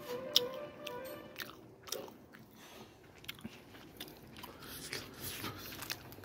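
Irregular sharp clicks and light knocks, typical of hand tools and metal parts being handled during repair work under an electric auto-rickshaw.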